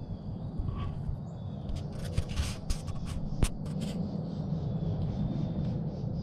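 Footsteps crunching on gravel and dry leaves while a handheld camera is carried, over a steady low rumble, with a cluster of sharp clicks and crackles in the middle.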